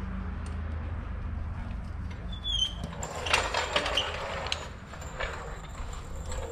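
Hydraulic floor jack being pumped by its long handle to raise the rear suspension, with metal clicks, rattles and short squeaks from about three seconds in, over a steady low hum.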